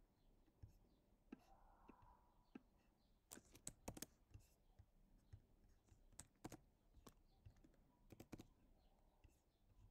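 Faint computer keyboard keystrokes and clicks, scattered through, with quick clusters about three to four seconds in and again around six and eight seconds.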